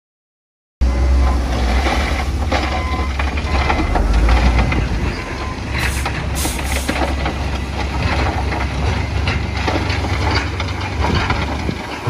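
Heavy diesel earthmoving machinery running under load with a deep, steady engine drone and scattered clanks and scrapes of rock, cutting in abruptly about a second in. Two short bursts of air hiss come near the middle.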